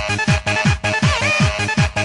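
Fast techno dance music: a pounding kick drum about three beats a second under repeating synth notes, with a brief swooping synth line about a second in.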